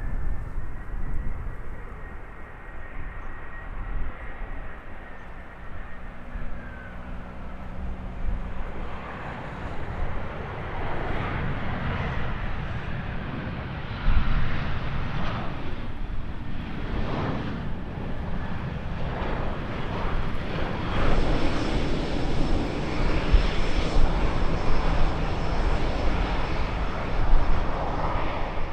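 Airliner engines, a faint high whine at first, then a broad roar building steadily and loudest over the last several seconds as the aircraft passes close.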